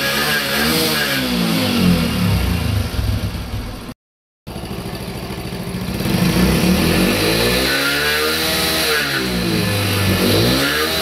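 Hero Splendor Pro's single-cylinder four-stroke engine revved in quick repeated throttle blips while its worn engine is burning oil. After a sudden cut about four seconds in, the freshly overhauled engine runs steadily and is revved up and back down twice.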